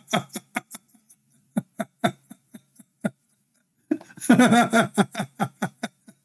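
A quick, irregular run of sharp clicks, with a few words of a man's speech about four seconds in.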